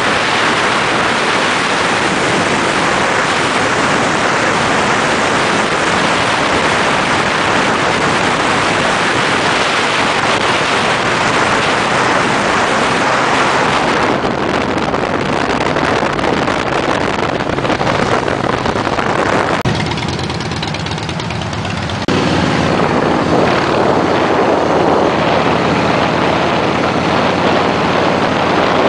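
Motorcycle riding at road speed: heavy wind rush on the microphone over the engine's steady drone. About twenty seconds in the wind eases for a moment, then the engine note comes through more clearly.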